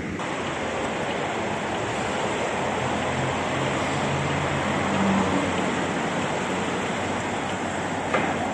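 Steady hissing outdoor noise of a wet city street, traffic swishing on rain-soaked roads, with a faint engine hum partway through. A single short knock near the end.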